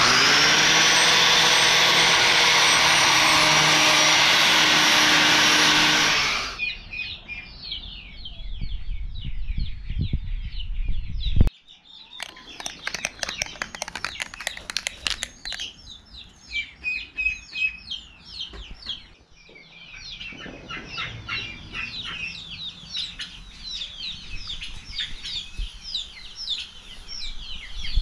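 Angle grinder spinning up and running steadily against a steel ATV rack for about six seconds, then winding down. After that, birds chirping and chickens clucking, with a knock about eleven seconds in.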